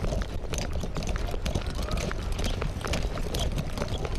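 Footsteps on a concrete quay, a series of irregular sharp steps over a steady low rumble.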